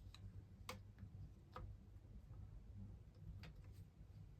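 Four faint, unevenly spaced clicks of plastic vacuum-cleaner parts being handled and fitted together, over a low steady background hum.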